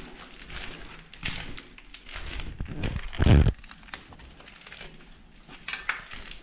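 Footsteps crunching on grit and debris on a concrete floor, with one loud low thump about three seconds in and a few sharper crackles near the end.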